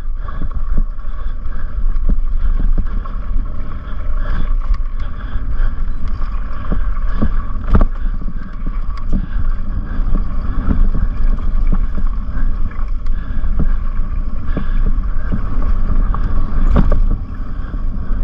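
Wind buffeting a helmet-mounted camera over the rumble of knobby tyres on rough, dry dirt, with frequent rattles and knocks from a Specialized Turbo Levo e-mountain bike descending a rutted trail. A steady high hum runs underneath.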